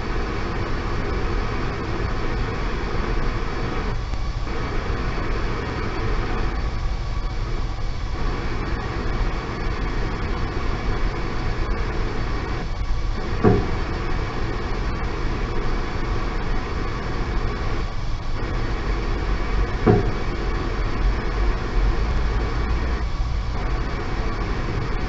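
Audio picked up by a fiber-optic distributed acoustic sensing cable: steady noise from a substation control house. Over it come two dull thumps about six seconds apart, the first a little past halfway. The thumps are a cable thumper pulsing a faulted underground power cable so the fault can be located.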